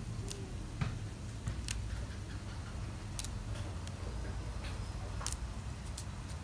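Small, irregular snaps and ticks as hot basil leaves are plucked from their stems by hand, over a steady low hum.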